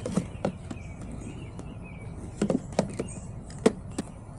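A series of sharp, irregular clicks and knocks, about seven in all, the loudest one near the end.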